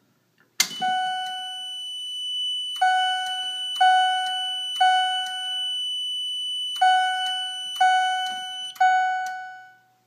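A pull station snaps as it is pulled, and a Wheelock CH70 chime/strobe starts striking in the temporal code-3 pattern: three ringing chime strokes about a second apart, a pause, then three more. A steady high-pitched beep runs under the chimes and stops near the end.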